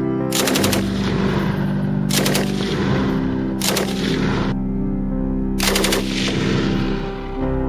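FN Model D BAR light machine gun firing four short bursts of a few rounds each, about a second and a half apart, over background music.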